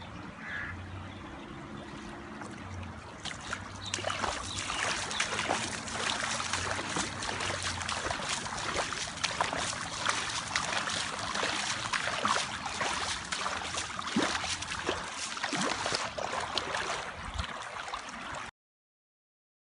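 Muddy flash-flood water rushing and gurgling, a steady rush full of small splashes that grows louder about four seconds in and cuts off suddenly near the end.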